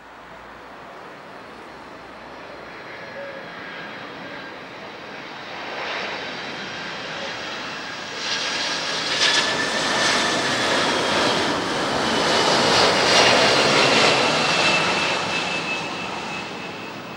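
Boeing 767-330ER airliner's jet engines on final approach, passing low overhead with landing gear down. The engine noise builds steadily, is loudest about two-thirds of the way through, then eases off, with a high whine that slowly falls in pitch as the jet goes by.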